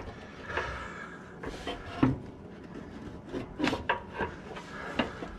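Exhaust pipe rubbing and scraping against its rubber hanger and the underbody, with a few light knocks, as it is worked free for removal.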